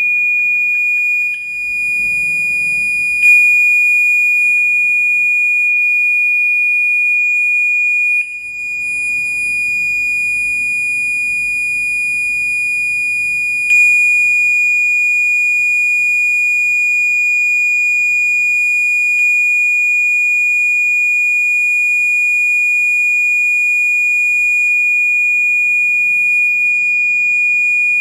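MUCCO SNT-B712 trumpet-type electronic horn sounding one steady, high-pitched tone without a break. Its loudness dips briefly twice and steps up twice along the way.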